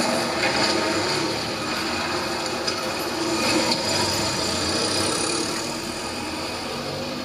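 A vehicle's engine running steadily, used as a journey sound effect in a staged radio play, easing down in level near the end.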